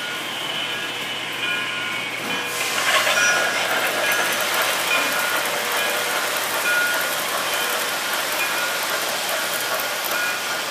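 Model trains running on the layout's track: a steady rolling rumble and clatter of wheels on rail as a long train of freight cars passes close by, growing louder about two and a half seconds in.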